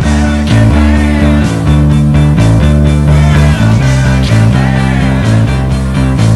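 Electric bass guitar playing a rock bass line of held low notes that change every half second or so, over a full rock recording with drums, cymbals and a male singer.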